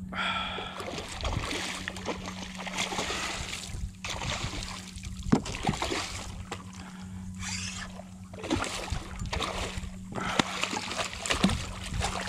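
A hooked redfish thrashing and splashing at the water's surface beside a kayak during the fight, in uneven bursts with brief lulls, under a steady low hum.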